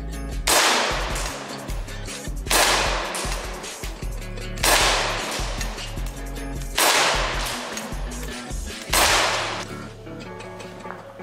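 Elite Force Glock 17 Gen5 half-blowback CO2 airsoft pistol fired five times, about two seconds apart, each shot a sharp crack with a short echo. Background music plays underneath.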